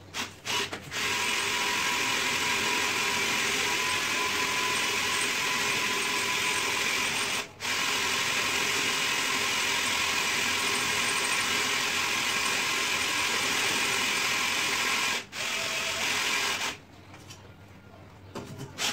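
Cordless hand drill boring into a ceramic-tiled wall: two brief starts, then a long steady run that breaks off briefly about halfway and again near the end before the drill stops.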